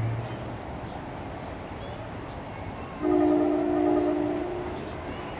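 Horn of an approaching NJ Transit commuter train led by a Comet V cab car, sounding for a road crossing. One steady multi-note blast starts suddenly about three seconds in, lasts about a second and a half, then fades.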